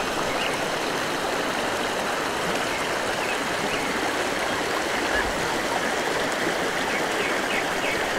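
Fast-flowing mountain stream rushing over rocks in a stone-lined channel: a steady, even rush of water.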